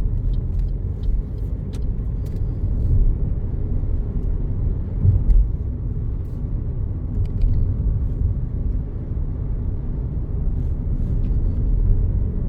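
Road noise inside a moving car: a steady low rumble of engine and tyres, with a few faint ticks near the start.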